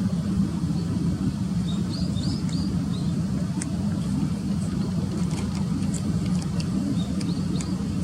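Steady low rumble of road traffic, with small birds giving short, high chirps scattered over it, some in quick runs of two or three about two seconds in and again near the end.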